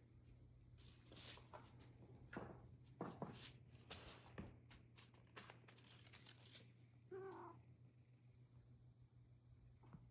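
Faint rustling and crinkling with scattered light clicks, then a short cat meow about seven seconds in.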